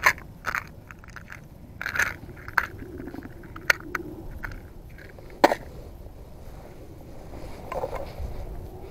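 Sharp plastic clicks and rattles from a small round plastic tackle container being handled and twisted, about half a dozen clicks over several seconds with the loudest about five and a half seconds in, over a low steady background noise.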